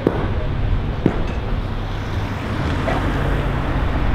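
Low, steady rumble of street traffic with wind buffeting the microphone, broken by two sharp knocks about a second apart near the start.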